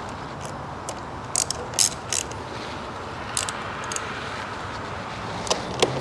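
Small ratchet wrench clicking in short, irregular bursts as it tightens the nut on a car battery's positive terminal clamp. The clicks are heard over a steady background noise.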